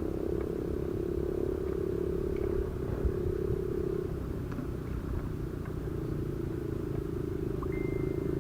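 A small engine running steadily: a low, even hum that dips slightly midway, with a few faint clicks.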